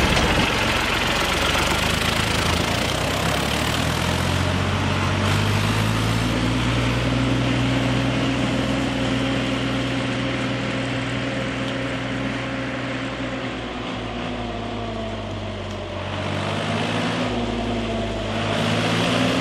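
A tractor-type engine running steadily at idle, its pitch dipping and then rising again near the end, over a steady hiss.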